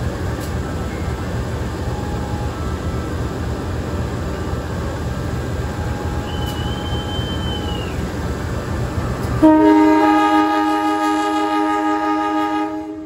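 Train running on a mountain climb, hauled by a CC203 diesel-electric locomotive, with a steady low rumble. About nine seconds in the locomotive's horn sounds one long, loud blast, which cuts off abruptly near the end.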